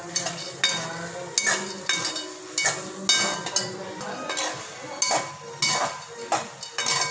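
A metal slotted spatula scrapes and knocks against a metal pan while stirring whole masoor lentils into a masala, with short ringing clinks about one to two times a second.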